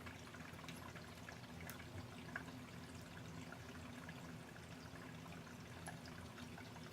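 Quiet room tone with a steady low hum and faint hiss, broken by a few faint clicks of small parts being handled, with a slightly louder tick near the middle.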